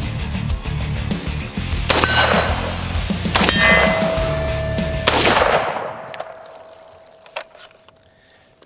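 Three .308 rifle shots from an FN SCAR-17S about a second and a half apart, each answered by a steel target ringing with a clear, sustained ding. The ring after the last hit dies away slowly.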